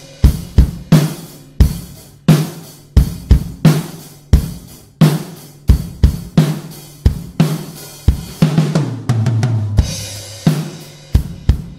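Recorded acoustic drum-kit loop of kick, snare, hi-hat and cymbals playing in a steady groove, two to three hits a second. It runs through an API 2500 compressor plugin whose threshold is being turned down for fairly heavy compression.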